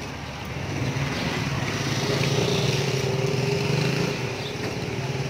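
A small motor vehicle's engine running close by on the street. It grows louder about a second in, holds a steady pitch, and eases off near the end.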